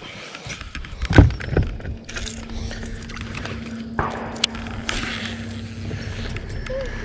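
Two heavy thumps about a second in, then a steady low hum with scattered sharp clicks as a baitcasting rod and reel is handled and cast from a bass boat.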